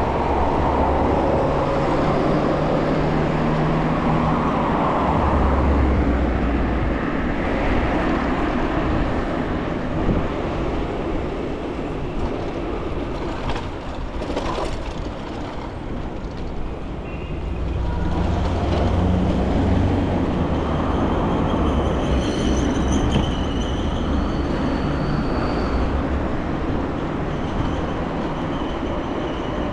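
Steady rumble of riding an e-bike on city asphalt: wind on the microphone and tyre noise, with a brief rattle about halfway through.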